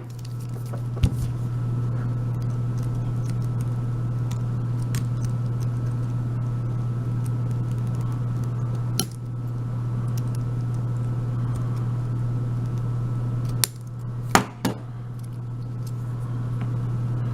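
A steady low hum, with a few sharp metallic clicks and clinks from handling a euro cylinder lock: one about a second in, one about halfway through, and a quick cluster near the end.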